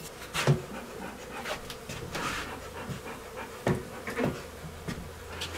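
A honeybee swarm humming steadily, with short breathy puffs of air and a few light knocks.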